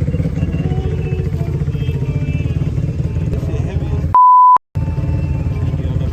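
A loud, steady, single-pitch censor bleep lasting under half a second about four seconds in, followed by a brief dead silence. Under it runs a steady low rumble.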